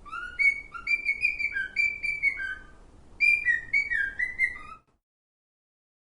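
Cockatiel whistling a tune: a run of clear whistled notes, some sliding up or down in pitch, in two phrases with a short break between, stopping after about five seconds.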